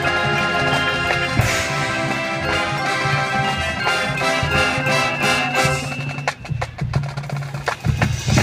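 High school marching band playing its field show: sustained wind chords over drums and mallet percussion, with a cymbal crash about a second and a half in. About six seconds in the winds drop out and the texture thins to separate sharp percussion strikes, before the full band comes back in at the end.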